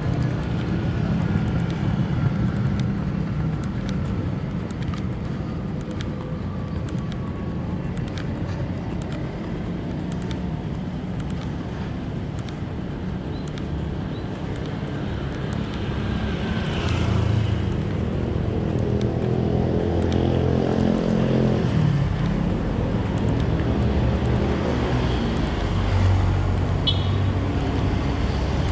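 Road traffic: a steady low engine rumble, with a louder vehicle passing about two-thirds of the way in and a short high beep near the end.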